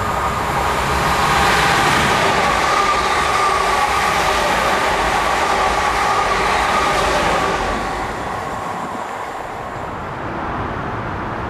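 Class 350 Desiro electric multiple unit running through the station at speed: a loud rush of wheel and air noise with a steady whine over it, fading after about eight seconds.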